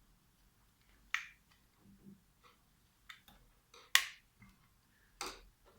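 Four sharp clicks from small tools and metal parts being handled while a phono preamp is taken apart. The loudest comes about four seconds in.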